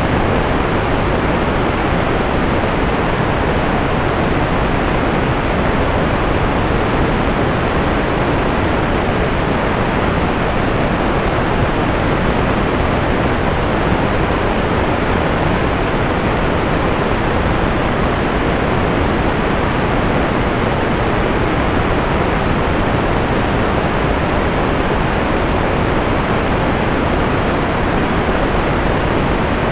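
TV static: a loud, steady hiss that never changes.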